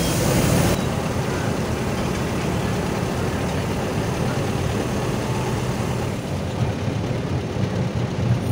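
Bus engine running with road noise as the bus drives along, heard from inside the passenger cabin; a steady low drone, with the higher hiss dropping away just under a second in.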